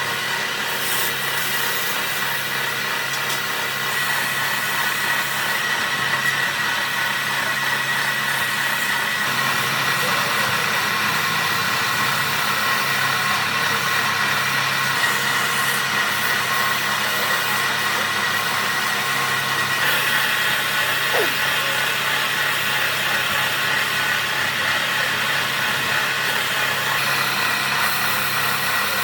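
A power tool running steadily, a constant whine with a low hum under it.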